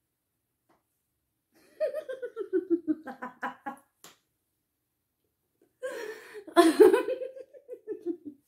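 A woman laughing in two bouts, about two seconds in and again about six seconds in, each a run of short pulses falling in pitch.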